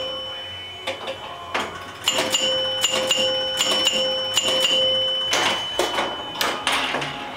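Gottlieb electro-mechanical pinball machine in play: its chime bells ring over and over, about three strikes a second between about two and five seconds in, as the score reels advance by thousands. Sharp mechanical clicks from the flippers, relays and score reels run throughout.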